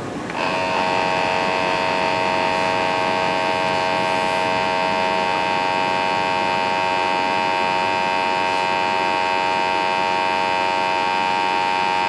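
The gas sampling pump of a Testo 330-1 combustion analyzer starts about half a second in and runs with a loud, steady, many-toned hum, drawing flue gas for a measurement.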